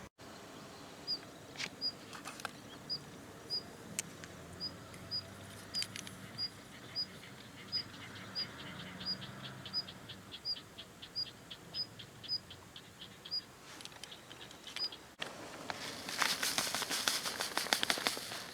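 A small bird calling with a short, high chirp repeated evenly, about twice a second. Near the end it is replaced by a few seconds of loud crackling rustle.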